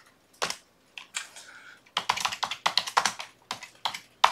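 Typing on a computer keyboard: an irregular run of key clicks, thickest in the middle, with one sharper click near the end.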